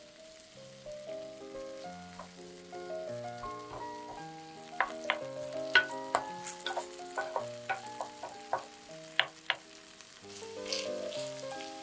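Shredded potato frying in oil in a nonstick pan with a light sizzle. A wooden spatula presses the shreds down, with a run of sharp taps and clicks on the pan from about five seconds in until nearly ten seconds. Soft background music of stepped notes plays throughout.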